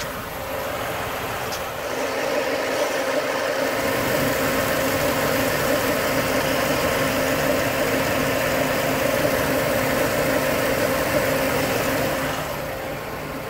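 Chrysler PT Cruiser engine idling with its accessory belt and pulleys turning, heard from under the engine: a steady hum with a steady tone, a little louder from about two seconds in. The AC compressor is not running even with the AC switched on, which the mechanic reads as an open in its electrical circuit.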